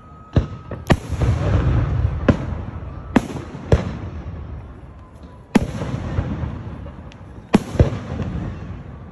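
Aerial fireworks shells bursting in a display: about eight sharp booms at irregular intervals, two of them close together near the end, each followed by a low echo that fades away.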